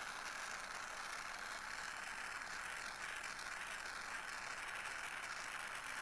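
Jeweller's torch flame hissing steadily and faintly as it heats an Argentium silver box clasp for fusing.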